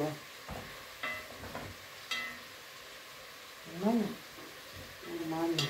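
Food frying with a steady sizzle in a cast-iron kazan while it is stirred, a metal spoon clinking against the pot a few times in the first half. A short voice-like sound comes about four seconds in and again near the end.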